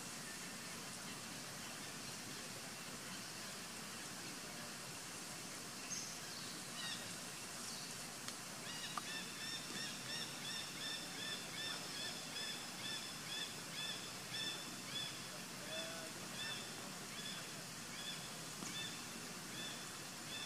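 A bird calling a long, even series of short arched, honking notes, about two a second, that starts about nine seconds in and fades out near the end. A single brief falling call comes a few seconds before it, over a steady background hiss.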